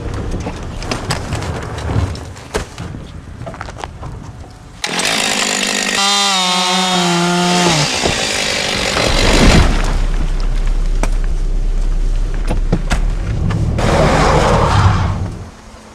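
Gasoline chainsaw running at low speed, then revved hard about five seconds in and cutting into wood. Its engine note sags under the load. The sound stops abruptly near the end.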